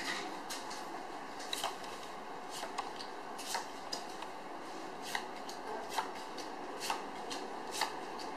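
Playing cards dealt one at a time onto a table, each landing with a short, light snap, roughly two a second, over a faint steady hiss.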